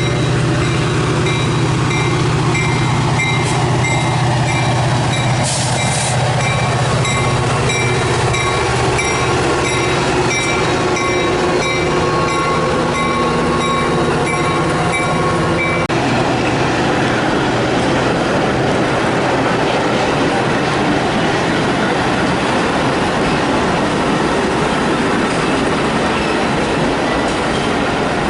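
A train passing close by: the diesel locomotive's engine hum fades over the first several seconds, then the cars roll past with steady wheel clatter and some wheel squeal. A bell rings a little over once a second and stops about halfway through.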